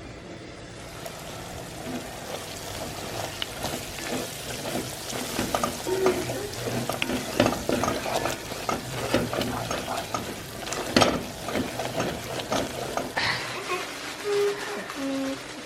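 Onions, garlic and paprika frying in a pot while being stirred: a steady sizzle with frequent short clicks and scrapes of the spoon against the pot.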